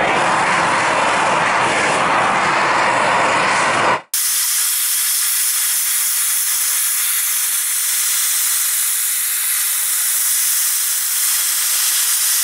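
Handheld gas blowtorch burning with a steady hissing flame while charring a pine board. About four seconds in the sound drops out for a moment and comes back as a thinner, higher hiss.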